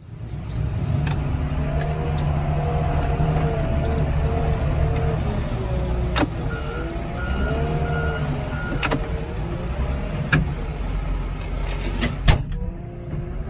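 Engine of a hydraulic boom loader running under load, with a whine that rises and falls as the boom moves. Sharp knocks come at about 6, 9 and 12 seconds, and a short run of high beeps comes near the middle.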